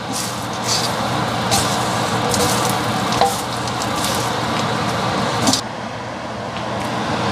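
Caramel-coated popcorn being stirred and turned over in a stainless steel pan with a wooden spoon and a spatula: irregular rustling and scraping strokes over a steady low hum.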